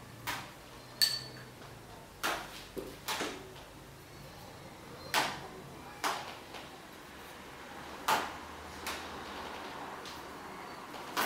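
Objects being handled and set down: about ten irregular knocks and clatters, one of them a short, ringing clink about a second in, over a faint steady hum.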